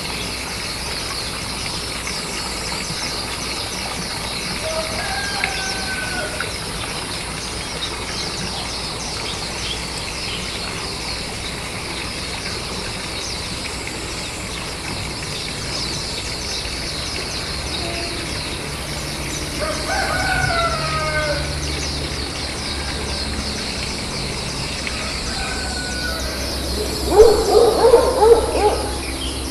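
Outdoor ambience of a steady insect chorus, with a few short gliding calls from a distant rooster. Near the end comes a short loud burst of sound at the nest as an adult Japanese white-eye comes to feed its nestlings.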